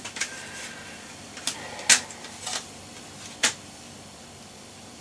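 A handful of sharp plastic clicks as a CD jewel case is opened and the disc taken out, the loudest about two seconds in. Under them is the steady low hum of the running Compaq Deskpro 6400 desktop computer.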